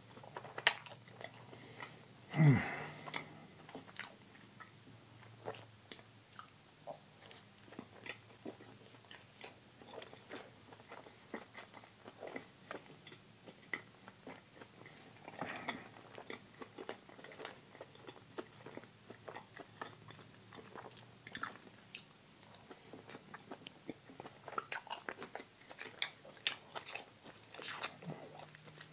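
Close-miked eating sounds of a person biting and chewing a soft bread bun with filling: many small wet clicks and smacks throughout. About two and a half seconds in, a short vocal sound from the eater falls in pitch and is the loudest thing heard.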